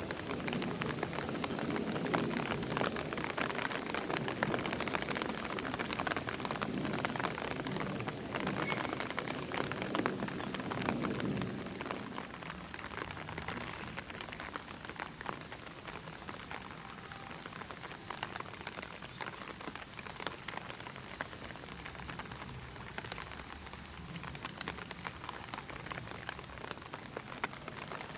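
Rain pattering steadily on surfaces, a little louder for the first twelve seconds or so.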